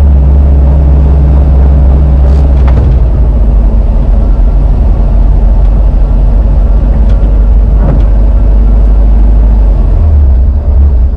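Porsche 914's air-cooled boxer engine running steadily after a replacement fuel pump has cured its no-start, running a little rough; the low engine note shifts about ten seconds in.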